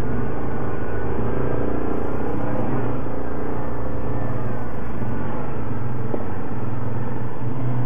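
ATV engine running steadily, its note shifting slightly about six seconds in.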